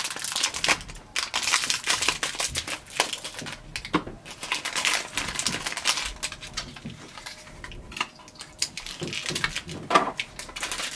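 Protective seal tape being peeled off HP 65 ink cartridges, with plastic packaging crinkling and small clicks of handling in irregular bursts.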